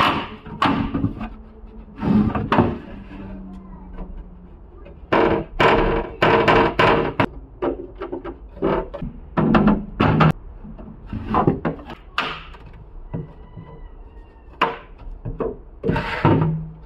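A string of irregular knocks and thuds on a hard, hollow object, a few of them leaving a short low ring.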